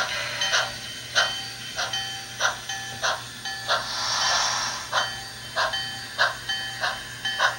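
Model Southern steam locomotive's sound unit chuffing steadily, a little under two chuffs a second, with a longer hiss of steam about four seconds in.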